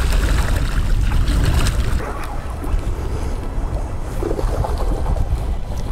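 Wind buffeting the microphone in a steady low rumble, heaviest in the first two seconds, over splashing sea water.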